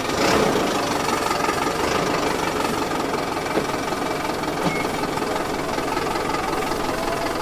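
Engine sound running steadily at idle, an effect laid over footage of toy trucks and tractors rather than anything the toys make.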